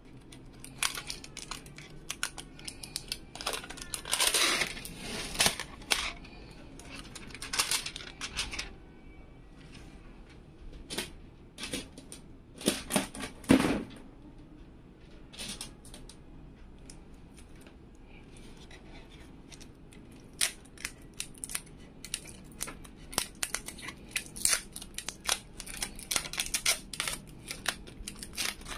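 Clear plastic protective film on a graphics card's shroud and backplate crinkling and crackling as it is handled and peeled off, in irregular bursts of sharp clicks and rustles; the loudest come about four seconds in and around thirteen seconds.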